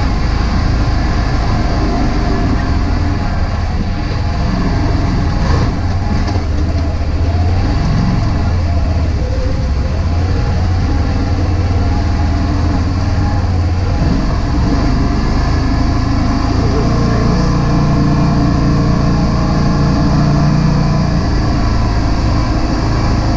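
Can-Am Defender HD10 side-by-side's V-twin engine running steadily as it drives on a dirt trail, heard from inside the cab. The engine note rises for a few seconds past the middle.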